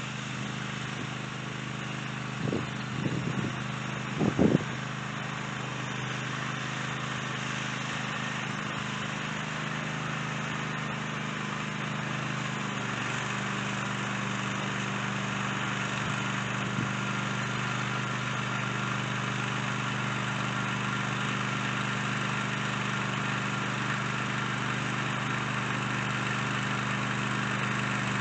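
Small gasoline engine of a garden cultivator running steadily, its tone shifting slightly about halfway through. A few brief clatters come in the first few seconds.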